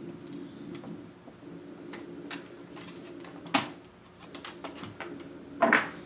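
Small clicks and taps of hands handling a laptop motherboard and its plastic chassis, with a sharp click about three and a half seconds in and a louder clatter near the end, over a low steady hum.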